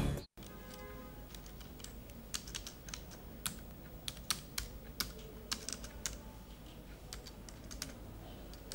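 Fingers typing on a laptop keyboard: quick, irregular key clicks, several a second.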